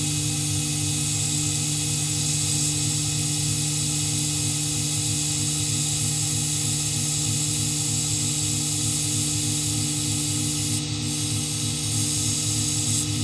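Grizzly G0759 mill's spindle running steadily with the end mill cutting acrylic sheet during a pass: a constant motor hum with a fast low throb under it and a high hiss of the cut.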